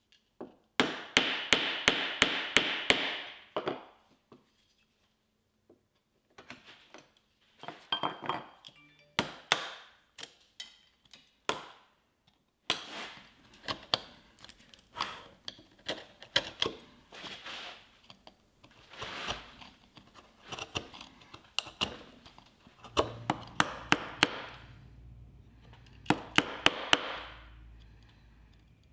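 Wood chisel struck with a mallet, chopping out a drilled mortise: runs of sharp knocks, a few a second, in several groups separated by pauses.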